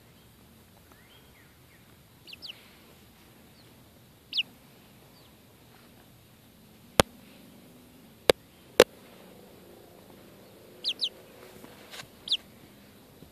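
Young chickens peeping with short, high chirps that fall in pitch, singly and in pairs. In the middle, three sharp taps, the loudest sounds, as a red pullet pecks at the camera.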